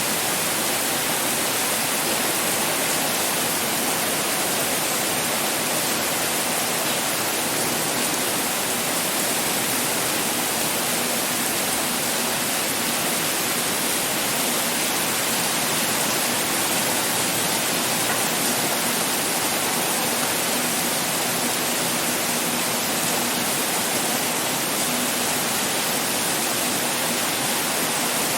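Pouring rain: a steady, even hiss that does not rise or fall.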